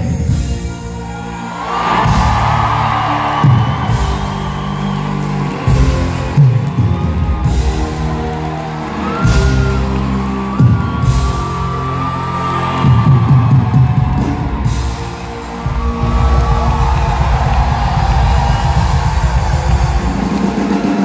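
Live pop-rock band playing loudly through a concert hall's PA, with a strong bass and drum beat and long held notes above it, heard from the audience.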